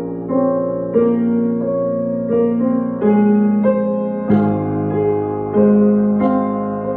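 Piano music: a melody of single notes, a new one about every half second, over held low notes, with the bass shifting about two-thirds of the way through.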